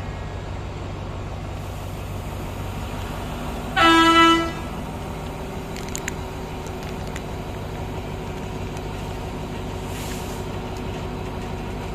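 A train horn gives one short blast about four seconds in, over the steady low hum of a diesel locomotive engine.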